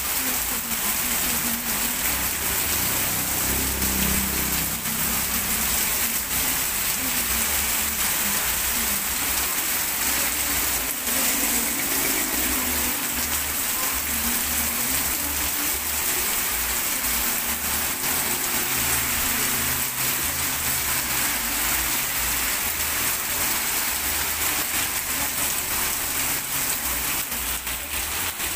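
Heavy rain pouring onto a wet, flooded street: a steady hiss. Underneath it is the low rumble of cars and motorbikes driving through the water, swelling and fading as they pass.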